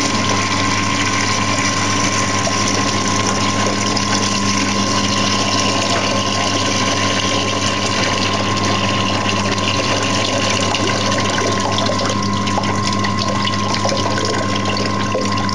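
Water rushing steadily out through the outlet of a draining tank, with a steady low hum underneath.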